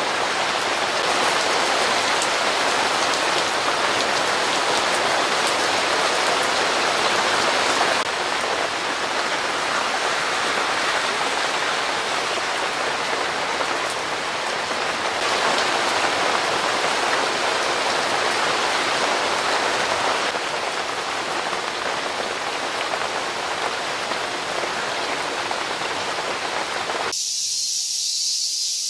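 Heavy downpour pouring steadily onto wet pavement and trees. About two seconds before the end it cuts off suddenly, giving way to a high, steady hiss of cicadas.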